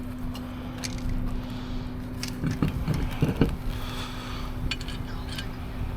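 A vehicle engine idling with a steady low hum, and a few short knocks and clicks over it.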